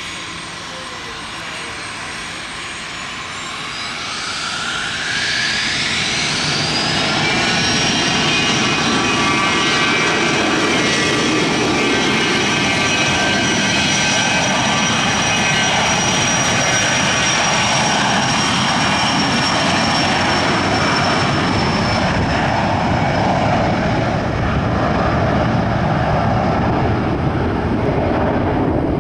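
Dassault Falcon 50 business jet's three Honeywell TFE731 turbofans spooling up to takeoff power: the whine climbs in pitch and grows louder about four to seven seconds in, then holds steady and loud through the takeoff roll.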